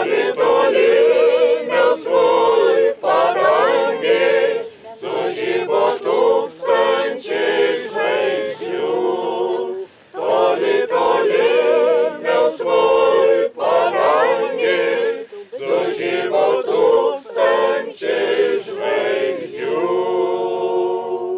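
Church choir singing a cappella, several voices together on sustained notes.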